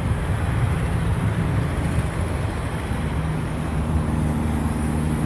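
Jet aircraft engines making a steady low rumble with a high hiss above it, with a steady low hum joining about three seconds in.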